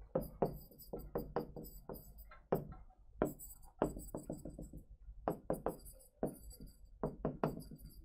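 Stylus tapping and scraping on a touchscreen display during handwriting: an irregular string of soft clicks and knocks, a few per second.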